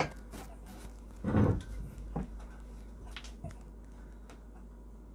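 Handling noise as a loaded barbell is gripped and lifted off the hooks of a steel York Pro Series 204 barbell rack for a bench press: a few light knocks, one louder, longer noise about a second and a half in, then a few more light knocks before it goes quiet.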